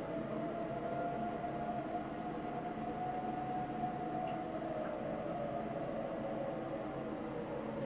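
Outdoor tornado warning sirens sounding the Attack signal used for severe weather: one wailing tone that slowly rises in pitch, holds, falls away around five seconds in, and starts to climb again near the end.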